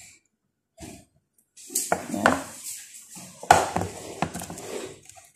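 Kitchen handling sounds around a roasting pan: a run of knocks, scrapes and clicks starting about a second and a half in, after a single soft knock, with the sharpest knock about three and a half seconds in.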